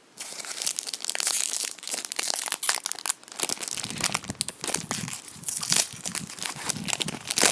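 Wrapper of a Select AFL Champions trading-card pack being torn open and crinkled by hand: a continuous dense crackling.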